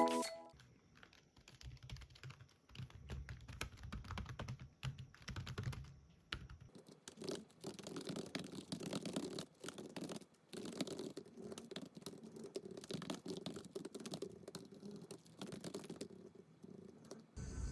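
Typing on a computer keyboard: a fast, irregular run of soft key clicks.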